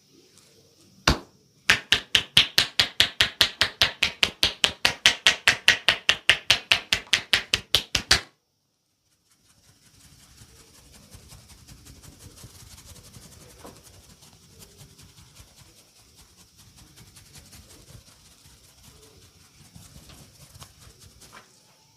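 Hand-chopping percussion massage: a single sharp slap, then a fast, even run of about six sharp strikes a second for roughly six seconds that stops abruptly. After that only faint low rustling.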